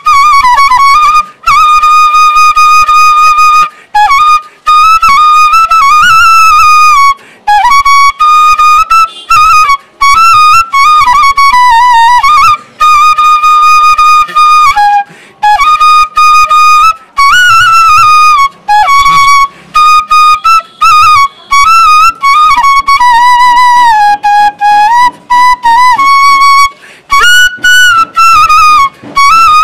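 Solo bamboo transverse flute (bansuri, Bengali 'bashi') playing a song tune, loud and close to the microphone. One melodic line with quick ornamental wiggles and slides between notes, in phrases broken every few seconds by short breath pauses.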